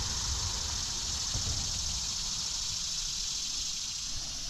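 Steady outdoor background: an even, high-pitched hiss, with a low rumble underneath.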